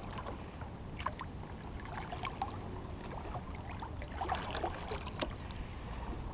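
Canoe on calm water: small irregular splashes, drips and lapping against the hull, over a low rumble of wind on the microphone.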